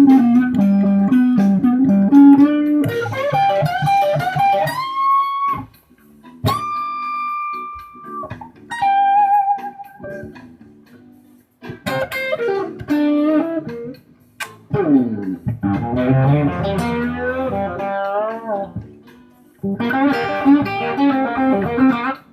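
Electric guitar played through an MXR Classic Fuzz Mini pedal and amp: single-note lead licks with rising string bends and long held notes, in short phrases with brief pauses between them.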